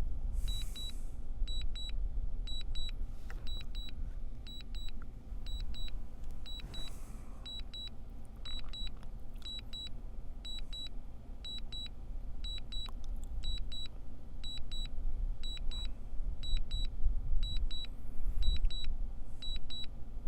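Drone remote controller beeping: a quick high double beep repeating about once a second, over a steady low rumble.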